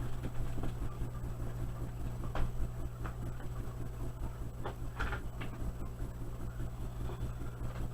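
Steady low hum of the Betta Falls tank's filter pump running, with a few light knocks and clicks, the clearest about two and a half and five seconds in.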